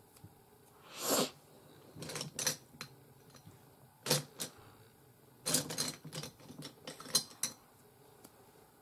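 Makeup brushes and cosmetic items handled on a table: irregular light clicks and taps, with a short scuffing sound about a second in.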